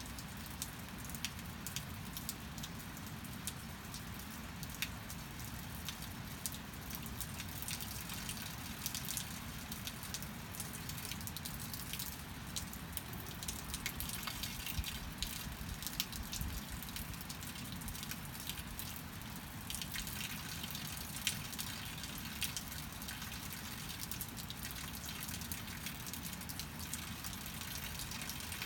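Steady rain falling, with many separate drops and drips striking close by.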